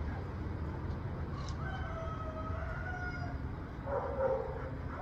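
A dog barks about four seconds in, the loudest sound here. Before it comes a fainter, drawn-out call held for over a second, over a steady low outdoor rumble.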